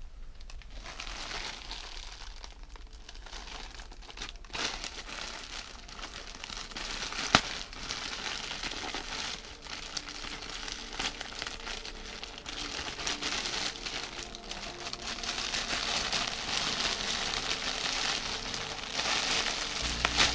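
A plastic mailer bag and the clear plastic bag inside it crinkling and rustling as they are handled and opened, with many small crackles and one sharp click about seven seconds in.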